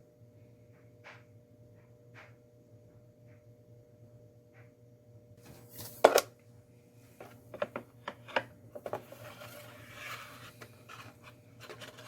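Handling knocks and clicks in a workshop: a few faint clicks, a sharp knock about six seconds in, then a run of lighter knocks and a short hiss, over a steady low hum.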